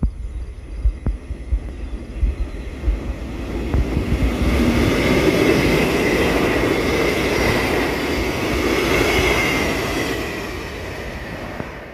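Electric express train passing on the rails: a rushing rumble of wheels that builds from about four seconds in, is loudest in the middle, then fades. Low thumps of wind on the microphone come in the first few seconds.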